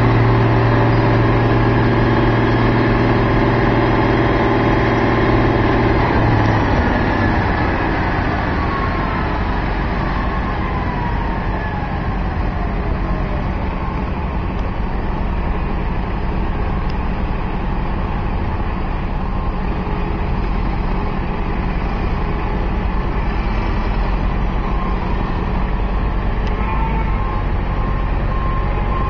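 Heavy construction machinery engine running steadily, its note dropping after about six seconds, with a falling whine a few seconds later. Near the end a reversing beeper starts sounding.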